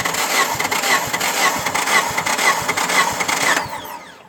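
Suzuki Vitara G16B four-cylinder engine spun on its starter motor with the spark plugs out, cranking for a compression test of cylinder 3. There is an even beat of about two pulses a second, and it stops about three and a half seconds in.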